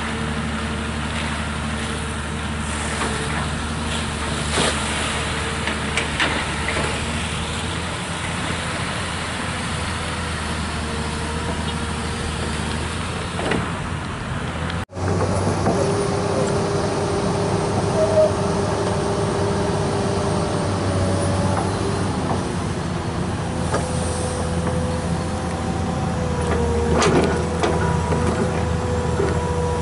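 Komatsu PC200 excavator's diesel engine running steadily under load, with a whine that shifts in pitch as the hydraulics work the long-reach arm and bucket. The sound breaks off for an instant about halfway through.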